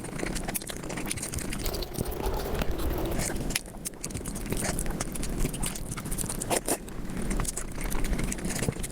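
Close-miked eating sounds sped up about five times: rapid, dense chewing and mouth clicks with bits of crunch and scrape.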